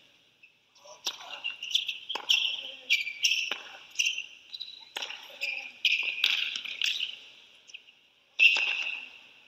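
Tennis point on a hard court: the serve and a rally of sharp racket-on-ball pops and ball bounces, with high-pitched shoe squeaks between the shots. A sudden louder burst comes near the end and fades over about a second.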